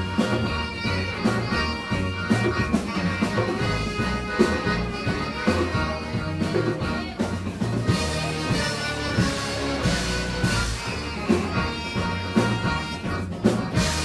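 Live band music: a steady bass line under sustained held notes, with cymbal and drum hits growing stronger from about halfway in.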